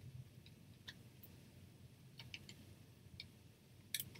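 Near silence: low room tone with a few faint, short clicks and light taps, the loudest about four seconds in, from hands handling craft items on a tabletop.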